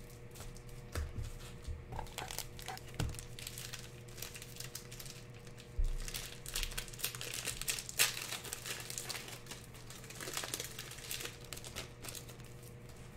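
Plastic wrapping on trading-card boxes and packs crinkling and crackling in irregular short bursts as hands handle and open them, with a low knock about six seconds in.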